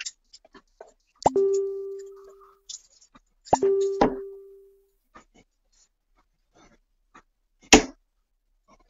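Two sharp clicks, each followed by a ringing tone that fades over about a second. Near the end, a steel-tip dart thuds into a bristle dartboard.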